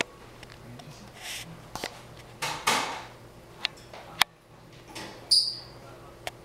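Scattered sharp clicks and brief rustling noises from handling, with one short high chirp about five seconds in, over a faint steady hum.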